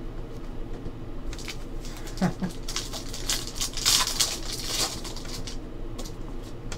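Foil trading-card pack wrapper crinkling as it is torn open by hand, loudest about four seconds in, then the cards inside being handled. A steady low hum runs underneath.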